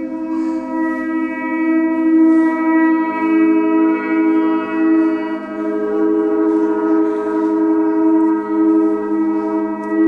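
Large suspended gongs ringing in a sustained, loud drone rich in overtones, swelling and fading slowly, with a few soft mallet strokes now and then.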